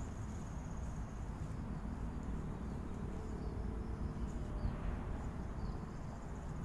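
Insects buzzing at a high pitch over a low wind rumble on the microphone, with a few short chirps in the second half.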